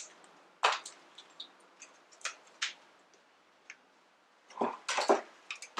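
Irregular light clicks and small knocks of greased CV axle joint parts being handled and pulled apart by hand, with a brief cluster of louder knocks near the end.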